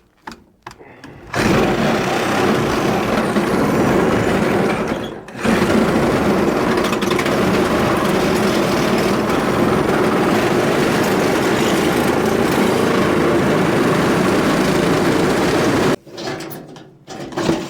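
Power saw cutting through wood. It runs for about four seconds, pauses briefly, then cuts steadily for about ten seconds before stopping suddenly.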